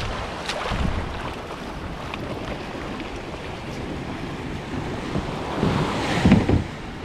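Small waves washing up on a sandy beach, with wind buffeting the microphone; the noise swells louder near the end.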